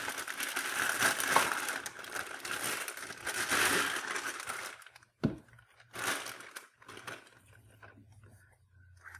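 Clear plastic bag crinkling as a rifle scope is slid out of it, for about five seconds. A single knock follows, then a short rustle about a second later.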